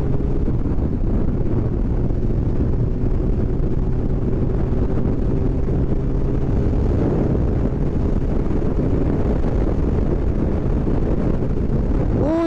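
Suzuki Hayabusa's inline-four engine running steadily at highway cruising speed, mixed with heavy wind rush on the microphone and a faint drone that slowly sinks in pitch. A sharp rising tone sets in at the very end.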